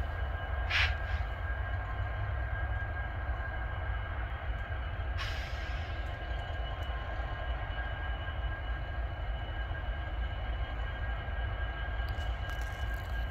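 Steady rail-yard background: a low rumble with a thin, steady high whine, broken by two short bursts of noise, about a second in and about five seconds in.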